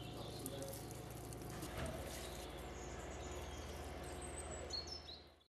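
Quiet outdoor ambience with a low steady hum, and a few faint high bird chirps in the last couple of seconds.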